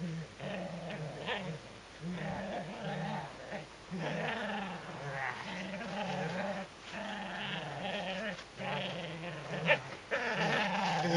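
Shetland sheepdog growling in repeated bursts while tugging on a toy: a play growl.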